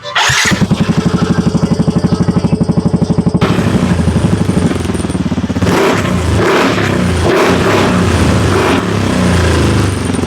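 Motorcycle engine breathing through a HUN 2-in-1 aftermarket exhaust: it catches just after the start and idles with a steady, rapid exhaust pulse, then from about three and a half seconds in it is revved in a series of throttle blips.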